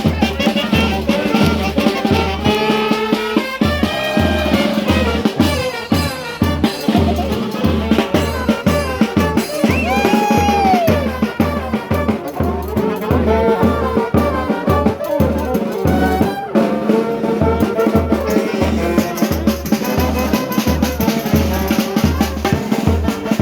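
A band playing music led by brass instruments over a steady, driving drum beat.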